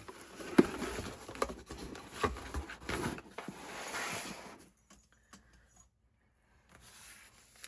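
Handling noises on a tabletop: rustling with scattered sharp taps and clicks, dying away to near silence about five seconds in, with one faint short rustle near the end.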